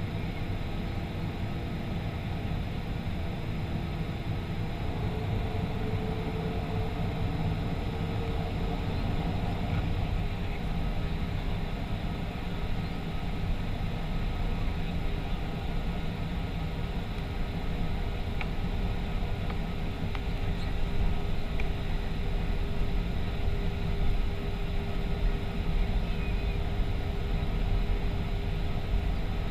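Steady rumble of a Lufthansa Boeing 737-500 in motion, its engines and airflow running continuously with a few faint steady tones, growing slightly louder and rougher in the second half.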